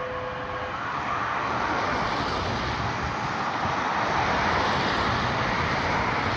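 The steady tone of the ambulance's electric air horn ends under a second in. It gives way to a steady rush of road traffic noise, tyres on the roadway mixed with wind.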